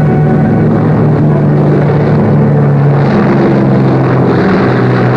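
Boeing 377 Stratocruiser's four radial piston engines at takeoff power during the takeoff roll: a loud, steady propeller drone that gains a brighter hiss about three seconds in.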